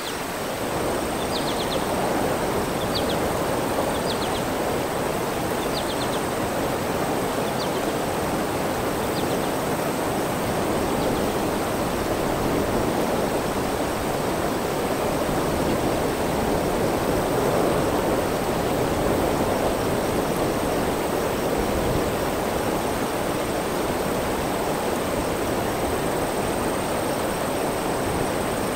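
Steady rushing noise of flowing water, with a few short, faint high chirps during the first ten seconds.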